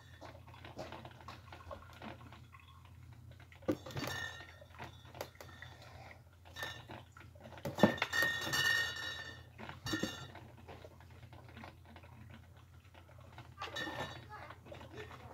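A cat scrabbling and pawing inside an empty cardboard carton: scattered scratches, taps and rustles of cardboard. The loudest flurry comes about eight seconds in, and a smaller one near the end.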